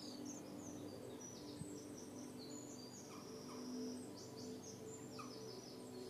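Small songbirds singing faintly: a busy mix of high, quick chirps, rapid trills and a few held whistles, over a low steady hum.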